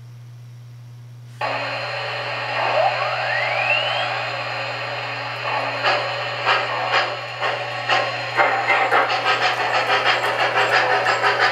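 Digital steam sound effects from an MTH Premier O-gauge PRR Mikado locomotive's speaker as it starts and moves off. Steam hiss comes on suddenly about a second and a half in, and a short rising whine follows. After a few separate chuffs, the chuffing settles into a quickening steady beat as the engine gets under way near the end, over a low steady hum.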